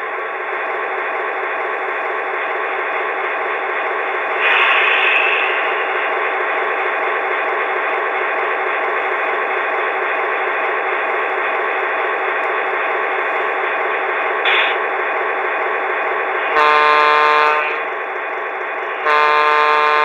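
QSI Quantum sound decoder in an HO scale Atlas Fairbanks-Morse Trainmaster locomotive, playing a diesel engine idling through the model's small onboard speaker. A short hiss comes about four and a half seconds in. Near the end come two multi-tone horn blasts, about a second each, the second one held.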